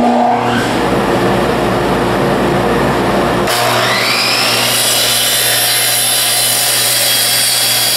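Miter saw and its dust extraction starting up. One motor switches on abruptly, then about three and a half seconds in a second motor winds up with a rising whine and runs steadily at full speed, the blade spinning free and not yet cutting.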